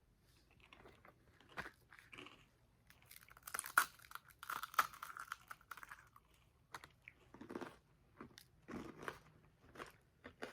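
Close-up biting and chewing of a frozen ice cream bar with a crunchy cereal-flake coating: irregular crunches and mouth noises, loudest about four seconds in.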